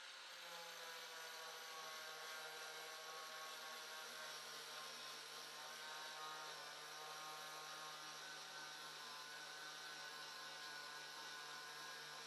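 Electric angle grinder with a flap disc running steadily against a rusty steel wheel arch, sanding it back towards bare metal: a constant motor whine whose pitch wavers slightly as the disc loads against the panel, over a grinding hiss.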